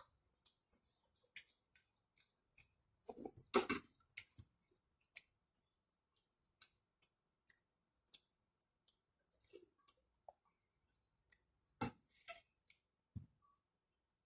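Scattered light clicks and taps, with louder clatters about three and a half seconds in and again around twelve seconds.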